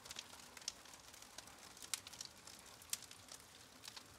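Wood campfire crackling: irregular sharp pops and snaps over a soft steady hiss, two louder pops about two and three seconds in.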